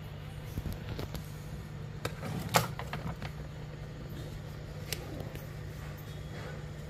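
Small tools and parts clicking and tapping on a repair bench, a handful of sharp light clicks with the loudest about two and a half seconds in, over a steady low hum.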